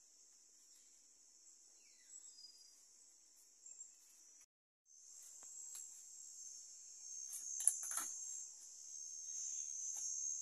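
Steady high-pitched chorus of insects. It drops out completely for about half a second a little under halfway through, then comes back louder. A few short knocks and rustles follow in the second half.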